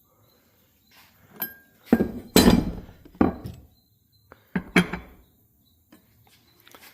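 Steel lawn mower blades clanking and clinking as they are handled on a blade balancer, one taken off and the next set on. There are several sharp metal knocks, some ringing briefly, and the loudest come two to three seconds in.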